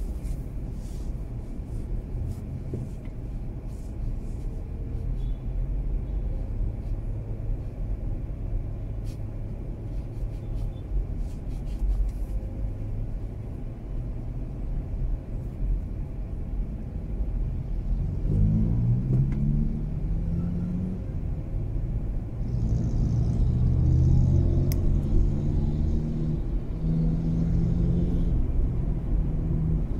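Mazda 3 car driving: a steady low rumble of engine and road noise. About 18 seconds in, the engine note rises in pitch as the car accelerates, then settles into a steadier drone.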